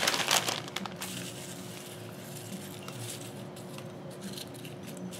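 Crushed Doritos tortilla chips crackling as they are poured from the bag and spread by hand over a pie, loudest in about the first second, then faint rustling and light ticks. A faint steady hum lies underneath.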